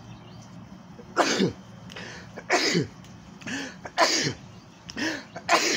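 A man coughing, a string of hard coughs about a second apart.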